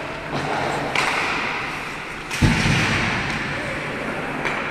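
Ice hockey play in an indoor rink: a few sharp clacks of stick and puck, and one heavy thud about two and a half seconds in, the loudest sound, typical of the puck or a player hitting the boards.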